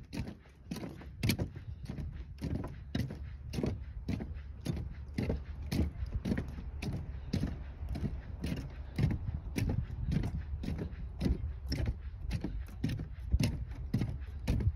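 Footsteps on a wooden boardwalk, the planks knocking and creaking in a steady walking rhythm over a low steady rumble.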